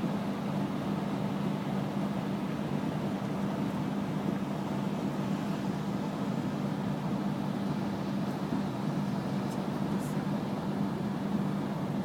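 Steady driving noise inside a moving car's cabin: road and engine noise with a constant low hum.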